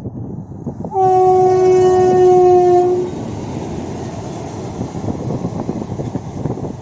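Indian Railways locomotive horn sounding one long steady blast of about two seconds, starting about a second in. A steady rushing noise of rain, wind and the train runs under it and carries on after the horn stops.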